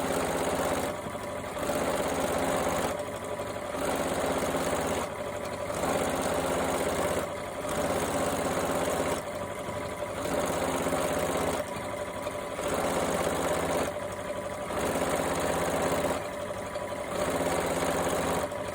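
Electric sewing machine running a straight stitch in runs of about two seconds, each broken by a short pause as the stitching switches between forward and reverse while darning denim jeans.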